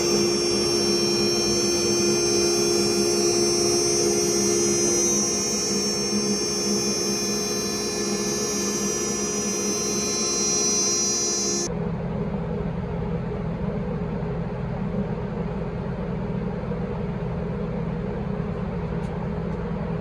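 CNC router spindle whining steadily as it mills a carbon fiber switch panel, several held tones over a rushing noise. About two thirds of the way through it cuts off abruptly, leaving a lower steady hum.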